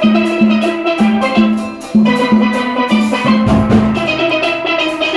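Full steel orchestra playing a soca tune: massed steelpans sounding many ringing notes over a steady beat of about two strokes a second, with drum kit and percussion keeping time.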